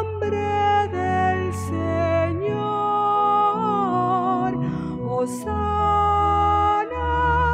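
Church music: a voice singing long held notes over instrumental accompaniment with sustained chords and a steady bass line.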